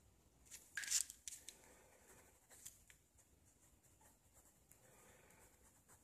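Ballpoint pen scratching on lined paper in short sketching strokes, with one louder scratchy scribble about a second in.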